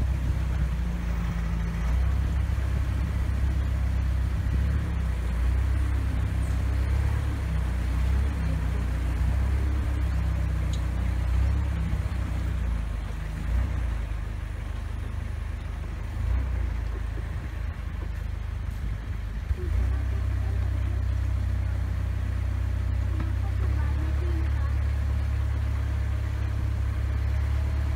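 Long-tail boat engine running steadily at low speed, heard from aboard the boat; it eases off for a few seconds past the middle, then settles back to a steady run.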